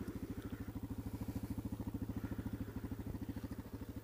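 Suzuki motorcycle engine idling steadily, with a quick, even exhaust pulse.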